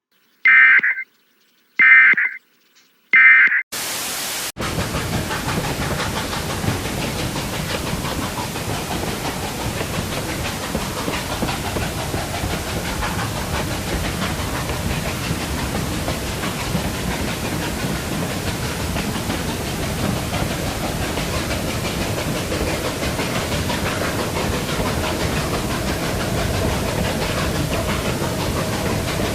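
Three short bursts of Emergency Alert System data tones, the end-of-message code, then a moment of static. After that comes the steady noise of a train running, which lasts the rest of the time.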